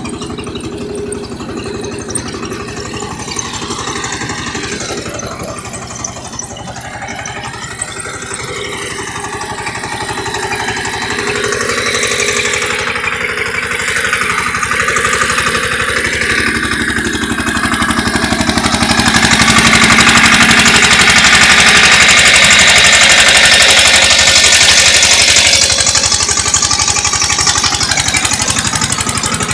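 Eicher 188 tractor's single-cylinder air-cooled diesel engine running with a steady fast chugging. It grows louder through the middle, is loudest about two-thirds of the way in, then eases back a little.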